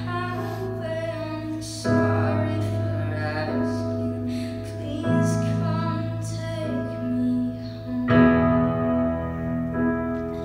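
Live music: sustained keyboard chords that change every few seconds, with a violin and a woman's singing voice over them.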